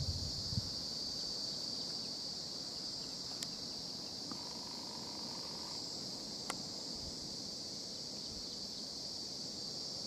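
A steady, high-pitched insect chorus buzzing without a break in dry bush. A few low bumps come right at the start, and a faint steady tone is heard briefly in the middle.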